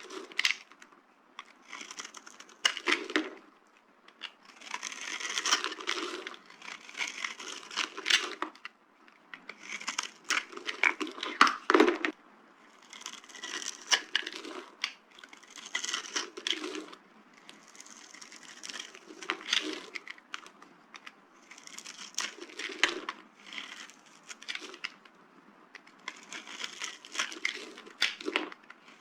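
Dry bar soap being crushed and crumbled, in about a dozen bursts of crunching and crackling with sharp little cracks, one every two seconds or so.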